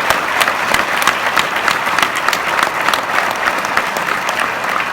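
An audience applauding, many hands clapping at once in a steady, loud round of applause.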